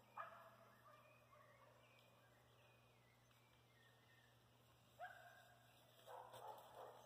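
Faint, short calls from domestic fowl: one just after the start, another about five seconds in, and a quick run of calls near the end, over a quiet rural background.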